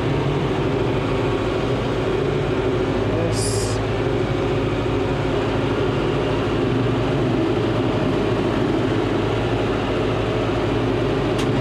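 John Deere 5085M tractor's diesel engine running steadily while brush hogging, with a brief high hiss about three and a half seconds in.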